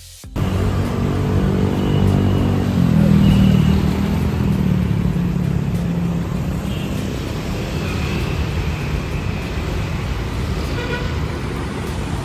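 Busy city street traffic with cars and motorcycles driving past. One engine's note grows louder and stronger for the first few seconds, then the traffic settles into a steady mix.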